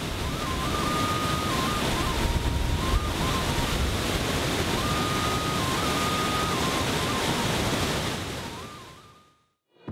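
Steady rush of the Blue Nile's flowing water, fading in at the start and fading out to silence about a second before the end. A faint thin whistle steps between a few pitches over it.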